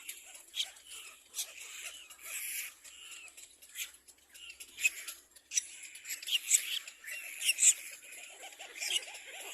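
Little black cormorant chicks begging for food: a jumble of short, high squeaky calls and clicks, busier and louder in the second half.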